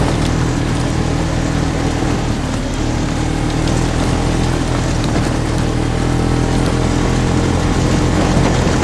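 Polaris RZR side-by-side engine running at a steady speed while driving, with a constant rush of wind and terrain noise over it.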